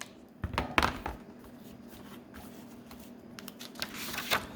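Handling noise: a few soft knocks in the first second, scattered light clicks, then a papery rustle that builds near the end.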